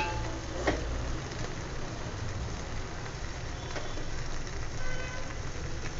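A metal spoon clinks sharply against a steel pot about a second in, then a few faint soft taps follow as cooked rice is spooned in a layer over curry. A steady low rumble runs underneath.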